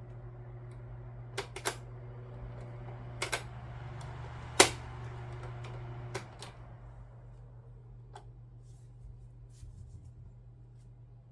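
Electric fan running with a steady low hum, broken by several sharp clicks, two in quick pairs near the start and the loudest about four and a half seconds in.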